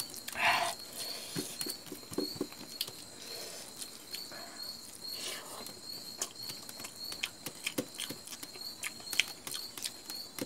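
Eating by hand from a stainless steel plate: fingers scraping and tapping across the metal while gathering rice, with chewing and mouth sounds, heard as many scattered sharp clicks and ticks. A faint steady high-pitched tone runs underneath.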